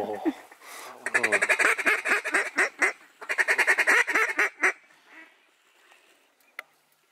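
Waterfowl calls blown from the blind to work a flock of ducks overhead: two loud, rapid runs of calling over about four seconds, with a short break between them.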